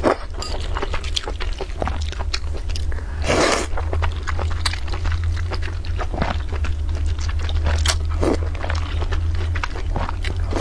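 Close-miked eating of wide flat noodles: wet chewing and mouth clicks, broken by slurps as strands are sucked up, the longest and loudest about three and a half seconds in. A steady low hum runs underneath.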